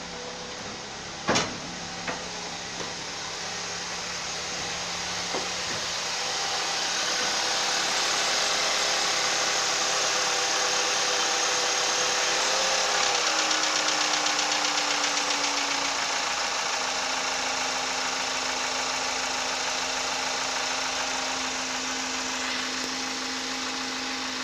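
Skoda Octavia 1.8 TSI (CJSA) petrol engine fast-idling on a cold start, with a sharp click about a second in. A knock comes in about eleven seconds in and lasts some four seconds, then stops as the idle drops lower and runs steady.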